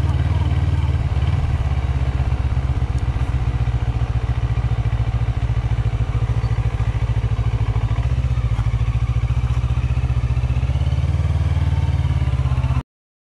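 Motorcycle engine and exhaust running as the bike is ridden at low speed, a steady, evenly pulsing low rumble. It cuts off suddenly near the end.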